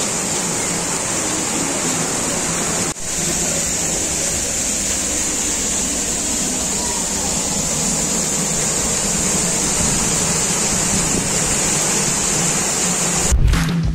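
Waterfall: a steady rush of falling water with a strong high hiss, breaking off for an instant about three seconds in. Near the end a low thump and a few clicks come in.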